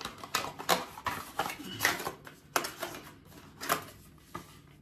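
A run of light, irregular taps and clicks, about a dozen in under five seconds, from handling skincare products and applying vitamin C serum by hand.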